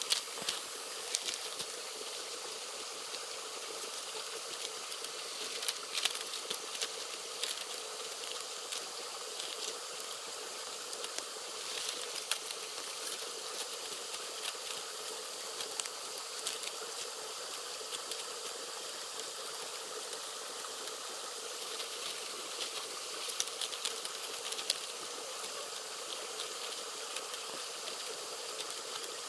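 Steady outdoor hiss with scattered light clicks and rustles.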